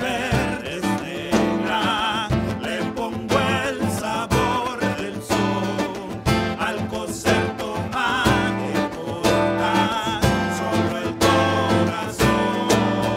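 Live acoustic music: male voices singing with vibrato over strummed acoustic guitar and a small strummed guitar, with cajón strokes keeping the beat.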